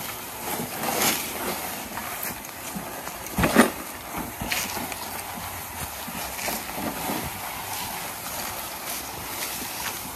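Footsteps crunching and rustling through leaf litter and undergrowth, irregular crackles throughout, with one louder snap or knock about three and a half seconds in.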